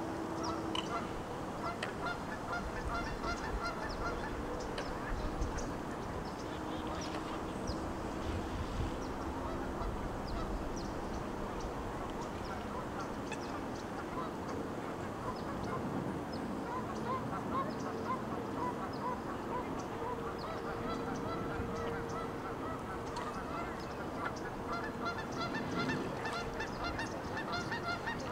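A flock of waterfowl calling continuously, with many short calls overlapping in quick succession over a steady background noise.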